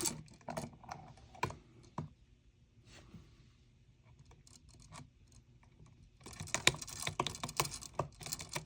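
Hands working electrical wires and small tools: a few sharp clicks in the first two seconds, then a quieter stretch, then a dense run of rapid clicking and scratching from about six seconds in, as the hot conductors are joined.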